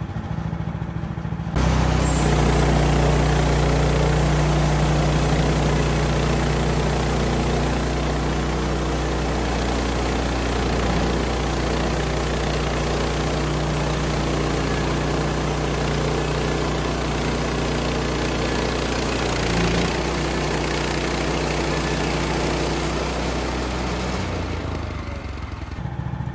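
Engine-driven portable sawmill: the engine idles, then throttles up about a second and a half in and runs under load while the blade saws through a spruce log, a dense sawing noise over the steady engine. Near the end it drops back to idle as the cut finishes.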